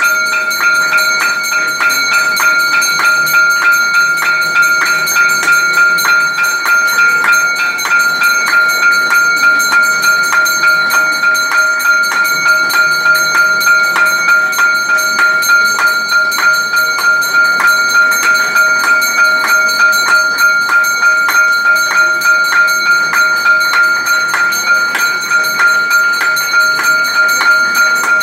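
Temple bell rung steadily and fast for the aarti, about two to three strikes a second over a constant ringing tone.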